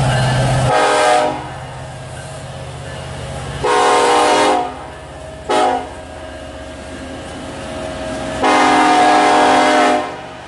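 Diesel locomotive horn on a CN freight train sounding four blasts, the third very short and the last the longest, close to the grade-crossing warning pattern. A steady low engine rumble underneath fades out about four seconds in.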